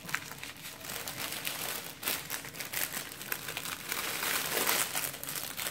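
Small clear plastic bags crinkling and rustling as they are handled and set down on a table, with many small clicks; the rustling is loudest about four to five seconds in.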